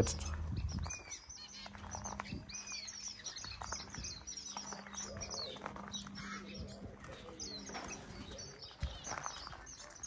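Mixed small aviary birds, finches and waxbills among them, chirping and twittering with many short, high calls overlapping, several birds at once.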